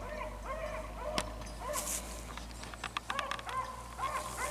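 Rabbit beagles baying on a rabbit's trail, their short, arched, repeating bawls overlapping at two pitches as several hounds give tongue together. The baying is the sign that the pack is running the rabbit. A brief sharp snap comes about a second in.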